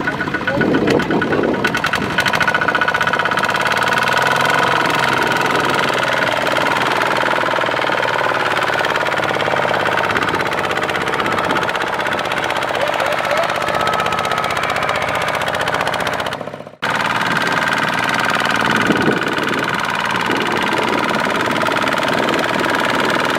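Diesel engines of a rice-transport tractor and a rice harvester running steadily and hard, with a knocking beat. The sound breaks off for an instant about two-thirds of the way through, then carries on the same.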